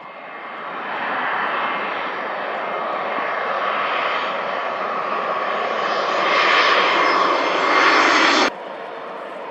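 Jet airliner's engines passing close, a steady roar that grows louder as the aircraft approaches. It stops abruptly about eight and a half seconds in, leaving a quieter steady rumble.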